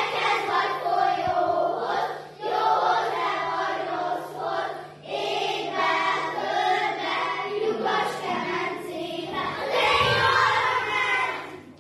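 A group of young children singing a Hungarian folk song together in phrases a few seconds long. The singing stops right at the end.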